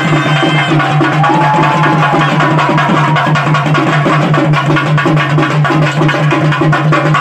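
Loud traditional drumming music: fast, even drum strokes over a held low tone, with a faint wavering melody line above.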